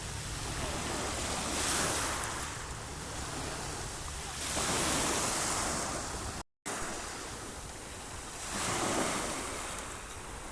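Sea waves washing onto the shore, the surf swelling three times, with wind buffeting the microphone. The sound cuts out completely for a split second about two-thirds of the way through.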